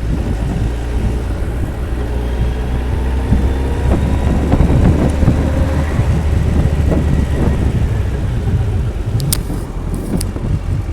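Kawasaki ZX-14R inline-four engine running, its pitch rising over a few seconds, with light clicking heard through the engine note. The owner asks whether this clicking around 2,500–3,000 rpm is an abnormal noise. A few sharp clicks come near the end.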